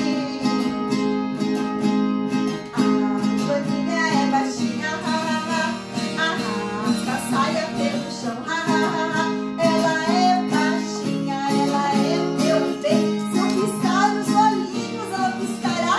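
A woman singing a children's song in Portuguese, accompanied by a strummed acoustic guitar.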